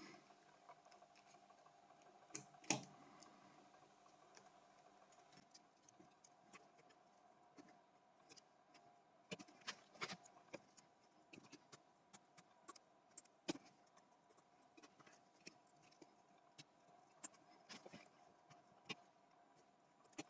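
Faint, irregular small clicks and taps of metal pliers on a phone's SIM card holder pins as they are bent back into place, with two sharper clicks a couple of seconds in.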